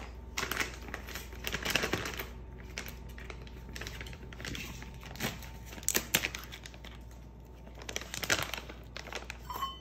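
Plastic pouch of buttermilk biscuit mix crinkling in irregular bursts as it is handled and torn open.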